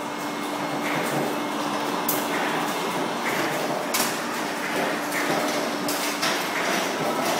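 Egg grading and packing machine running: a steady mechanical hum and clatter, with a few sharp clacks spread through it.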